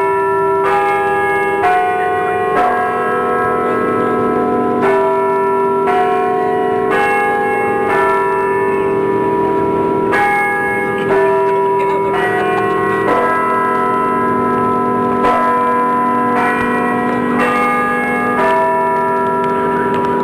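Temple bells struck one after another, about once a second. Each strike has a different pitch and keeps ringing under the next, so the tones overlap throughout.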